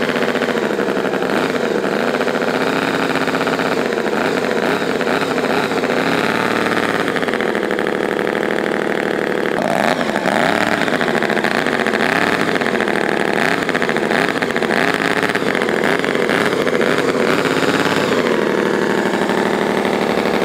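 Tiny 38 cc 90-degree V4 model engine running with an uneven firing order, its speed wavering up and down as it is adjusted by hand.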